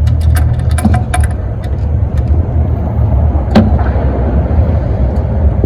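Clicks and clinks of a metal wrench being worked on a car's oil drain bolt, in a quick run in the first second or so, then one sharp knock about three and a half seconds in. A steady low rumble runs under it all.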